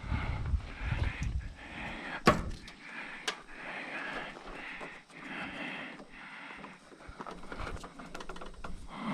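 Rustling and clattering as electrical wires and metal parts inside a kitchen range are handled and cut with small wire snips, with two sharp clicks about two and three seconds in.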